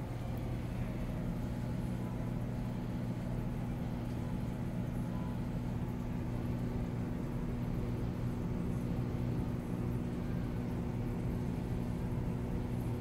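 Aquarium pump running with a steady low electrical hum and a faint hiss of bubbling water.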